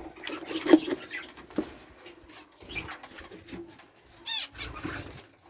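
Budgerigars chirping and chattering in their cage, with scattered clicks and a quick run of sweeping chirps about four seconds in.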